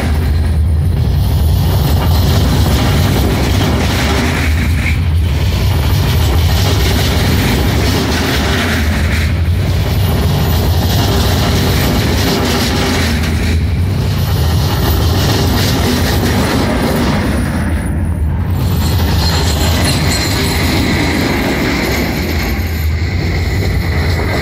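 Czech Railways passenger coaches rolling past at close range: a loud, steady rumble of steel wheels on the rails. The sound dips regularly about every four seconds.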